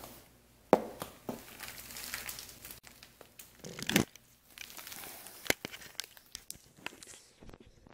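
Handling noise from the camera being picked up and moved: crackly rustling and scraping broken by a few sharp knocks, the loudest about four seconds in.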